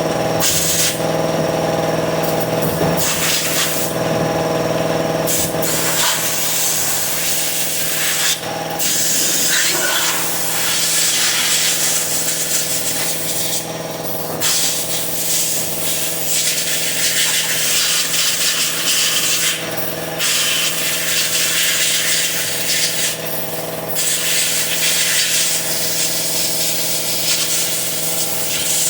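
Long hissing blasts of brake cleaner and a compressed-air blow gun on a transmission, breaking off briefly every few seconds, over the steady hum of a running air compressor.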